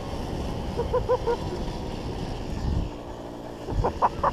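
Jawa 555 moped's small two-stroke single-cylinder engine running steadily while riding, with a quick run of four short high sounds about a second in and a louder cluster of short high sounds near the end.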